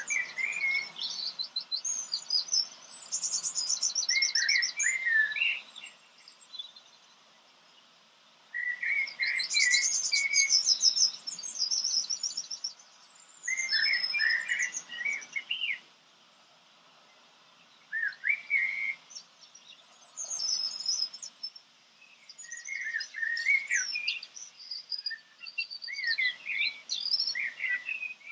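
A songbird singing in phrases of a few seconds, each a mix of fast, high trills and chirps, with short pauses between phrases.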